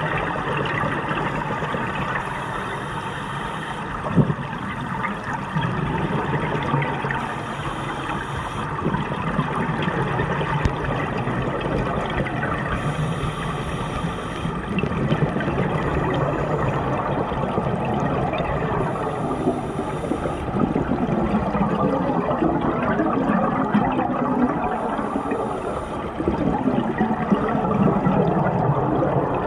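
Scuba diver breathing through a regulator underwater: a short hiss on each inhale, about every five to six seconds, between long bubbling gurgles of exhaled air.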